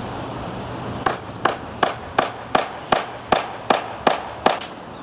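Hammer blows: about ten sharp strikes in an even, quick rhythm of nearly three a second, starting about a second in.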